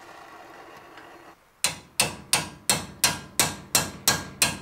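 Hammer striking a wrench set on a Mercedes W114's front brake caliper bolt: about nine sharp metal-on-metal blows at about three a second, starting about a second and a half in, trying to shock loose a stuck, torch-heated bolt.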